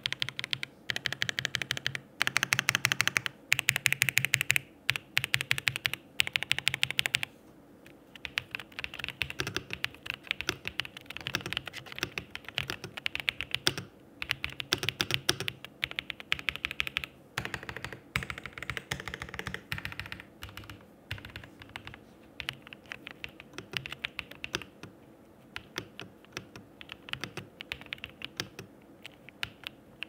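Typing on an RK Royal Kludge S98 96% mechanical keyboard fitted with pale green tactile switches: rapid keystroke clacking, heavier for the first seven seconds or so, then lighter, more scattered bursts.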